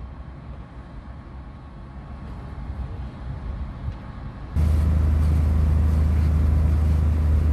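Low background rumble. About four and a half seconds in, it cuts abruptly to a loud, steady, low engine drone.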